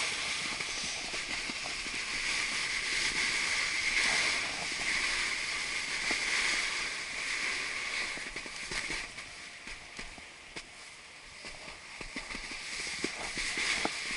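Snowboard sliding over packed, chopped-up snow: a steady scraping hiss that fades about nine seconds in and picks up again near the end.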